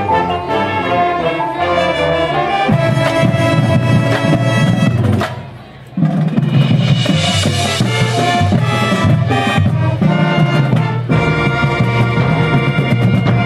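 High school marching band playing: brass chords over drums and mallet percussion. The band breaks off briefly about five seconds in, then comes back in all together with a cymbal crash and carries on.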